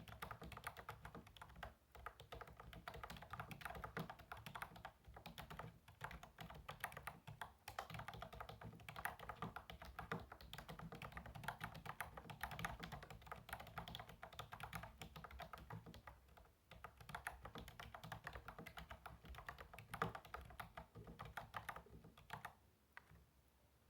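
Continuous fast typing on a Redragon Karura 2 K502 RGB semi-mechanical gaming keyboard: a dense stream of soft key clicks and bottom-out taps, with one sharper stroke near the end. The typing thins out and stops just before the end.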